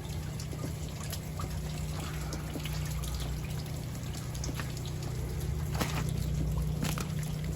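Water trickling and dripping, likely freezing rain and meltwater, over a steady low hum, with a few sharp drip-like ticks in the second half.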